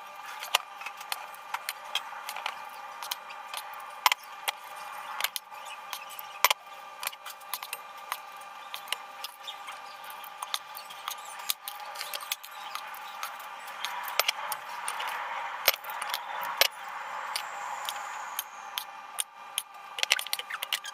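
Metal spoon clicking and tapping against a steel mixing bowl and a metal muffin tin as cake batter is spooned into paper cups: many short, irregular clicks over a steady hum.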